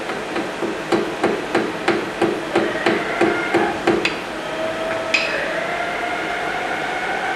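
About a dozen light hammer taps, about three a second, on steel stock clamped in a lathe chuck: the work is being knocked true against a dial indicator to take out runout. About a second after the taps stop comes one sharp click, then a steady whine that rises slightly in pitch.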